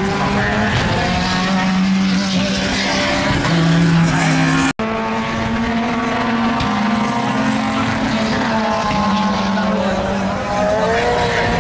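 Race car engines revving hard, their pitch climbing and dropping through the gears as the cars lap the circuit. The sound cuts out for an instant about five seconds in.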